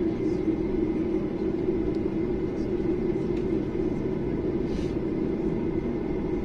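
Steady cabin drone and low rumble of a Boeing 737-800 taxiing, its CFM56-7B turbofan engines running at low taxi thrust, heard from inside the cabin over the wing.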